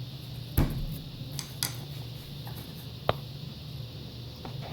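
A few sharp knocks and clicks of objects being handled, the loudest about half a second in, over a low steady hum.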